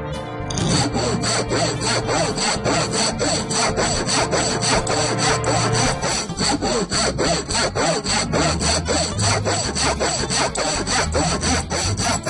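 Hand saw sawing through wood in quick, even back-and-forth strokes, several a second, starting about half a second in, with light background music underneath.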